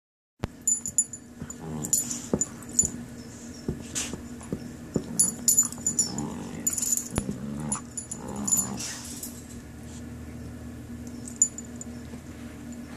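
A puppy and a larger dog play-fighting: playful growls and grunts with thumps of paws and bodies, and a metallic jingle of collar and tags, busiest in the first nine seconds and calmer after.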